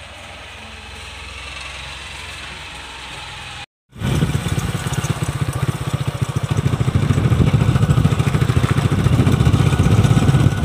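Motorcycle engine running as it is ridden, heard from the pillion seat: a loud, steady, rapidly pulsing note that cuts in abruptly about four seconds in. Before that there is a quieter low hum.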